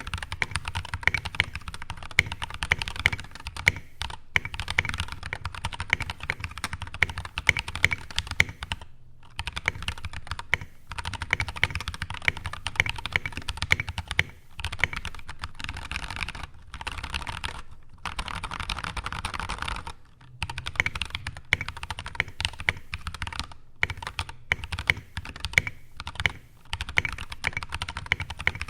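Fast continuous typing on a mechanical keyboard with stock, unlubed JWK Obsidian V2 tactile switches on an aluminium plate, damped by foam and o-rings: dense runs of key clacks broken by short pauses every few seconds.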